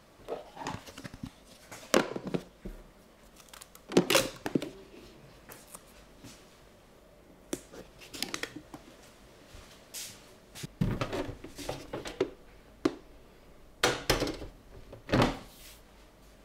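Hands handling a clear plastic food container of dough: a series of separate sharp knocks and clicks, a second or more apart, as the plastic box, its clip-on lid and the rubber band around it are worked on a countertop.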